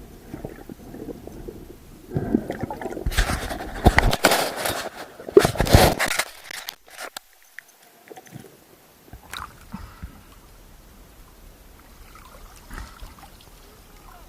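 Water sloshing and splashing close to the microphone, loudest in a stretch of rough splashing a few seconds in, then dying down to faint water noise with a few light knocks.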